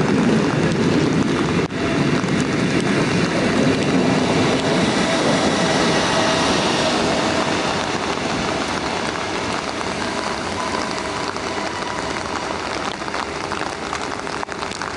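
BLS Ae 4/4 electric locomotive and its historic coaches rolling past slowly on the rails, with a low rumble that eases off about halfway through. Rain falls steadily over it.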